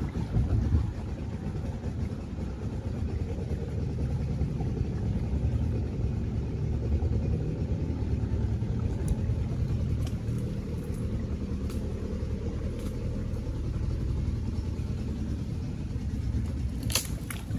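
Small boat's outboard motor running slowly, a steady low rumble, with a few sharp knocks near the end.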